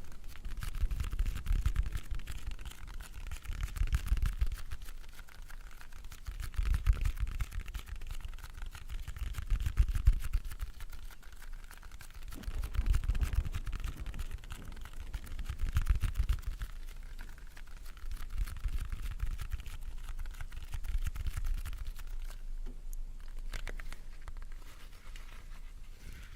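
Close-microphone ASMR sounds: soft breaths on the microphone swelling about every three seconds over a steady fine scratchy rustle, easing off in the last third with a few light clicks.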